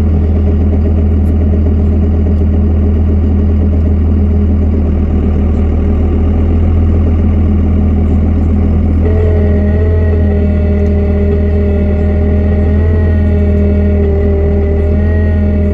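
Truck engine running steadily, heard from inside the cab. About nine seconds in, a steady high whine from the truck's hydraulic pump starts up over it, strained because the oil is cold.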